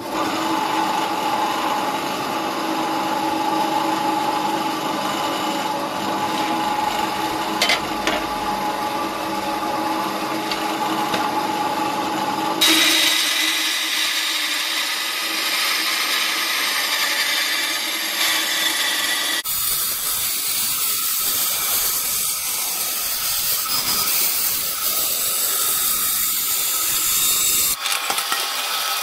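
Bandsaw with a wood-cutting blade cutting through 4 mm aluminium plate, running steadily. Its tone changes abruptly about a third of the way in and again later, becoming more of a high hiss.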